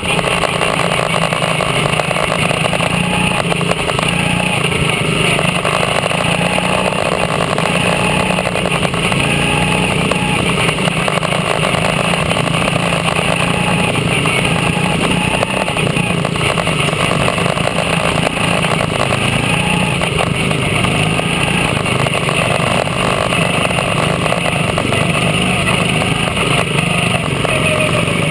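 Quarter midget race car's small single-cylinder engine running steadily at racing speed, heard up close from on board the car, with other quarter midgets running nearby on the track.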